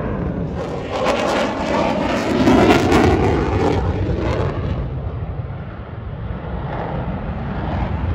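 Military fighter jet's engine roar as it flies past overhead. The roar is loudest with a ragged crackle in the first half, eases about two-thirds of the way through, then builds again.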